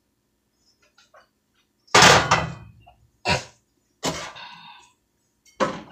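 Kitchen clatter: a loud knock with a brief ring about two seconds in, then two shorter knocks, and more knocks near the end, as cookware and utensils are handled on the counter.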